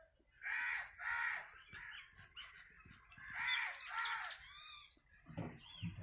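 Crows cawing: two pairs of loud, harsh caws, the first about half a second in and the second about three and a half seconds in, with fainter bird chirps between.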